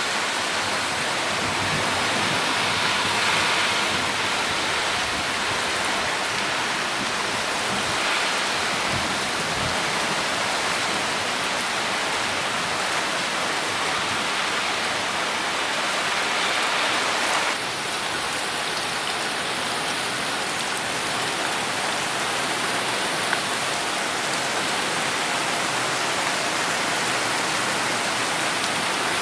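Heavy summer rain falling steadily, a dense even hiss, with a slight drop in level about two-thirds of the way through.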